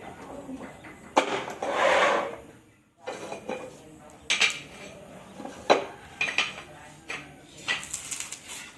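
Hard clinks and knocks of ceramic tiles and a tile cutter being handled, with a rasping scrape lasting about a second, starting about a second in.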